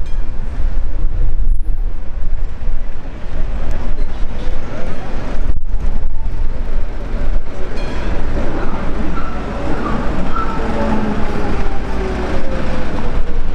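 Street traffic noise with an older BN-built articulated tram approaching over a steady low rumble. From about eight seconds in, a whine slowly falls in pitch.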